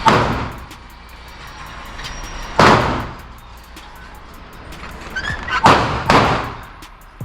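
Four gunshots at uneven intervals, the last two about half a second apart, each ringing out in a short echoing tail.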